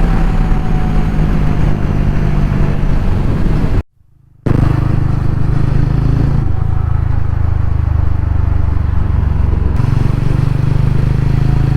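TVS Ronin 225 single-cylinder engine and exhaust running while the motorcycle is ridden, the note shifting a couple of times with throttle or gear. The sound cuts out for about half a second about four seconds in.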